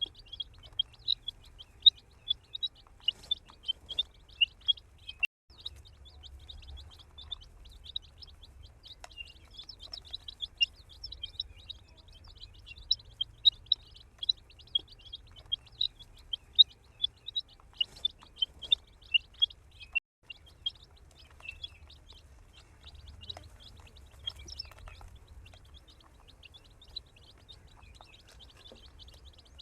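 A group of baby chicks peeping continuously, many short high chirps overlapping in quick succession, with two very brief breaks.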